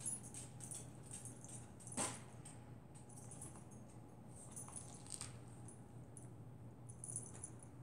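Faint small clicks and light jingling ticks as a cat in a plastic cone collar plays on a tile floor, with one sharper knock about two seconds in.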